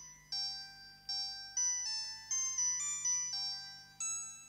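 Music: a tinkling, bell-like chime melody like an ice cream van's jingle. Single struck notes, about two or three a second, each fading away, over a faint low hum.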